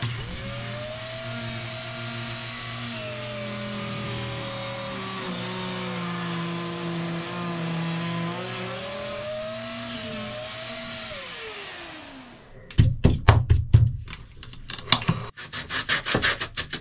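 Compact electric grinder with a small abrasive disc grinding away fiberglass around a bolted backing plate; its motor note shifts as it bears on the work and winds down about twelve seconds in. Then a quick run of sharp scraping strokes, about six a second.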